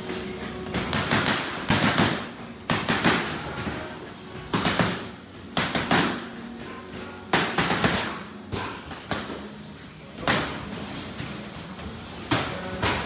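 Boxing gloves smacking into focus mitts: a dozen or so sharp punches thrown in quick combinations of two or three, with short pauses between, over background music.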